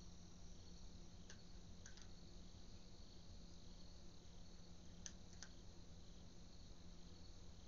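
Faint night-time crickets chirping over a steady low hum, with four short sharp clicks in two pairs, about a second and a half in and about five seconds in.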